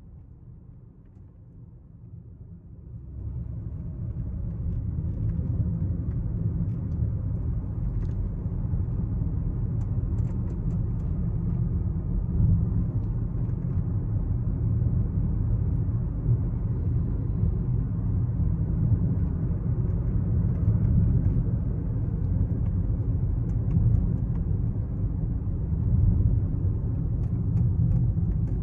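12th-generation Toyota Corolla Altis moving off about three seconds in, then a steady low rumble of the car underway, with faint scattered ticks and clicks over it. The car is being recorded for an abnormal noise from its steering wheel.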